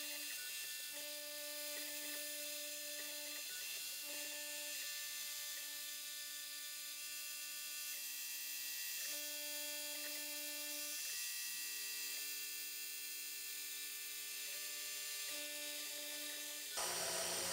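Small CNC milling machine running as a chamfer end mill cuts V-grooves in a metal block: a steady high hiss with several steady whining tones that switch on and off every second or two as the machine moves. The sound changes to a louder, lower hum near the end.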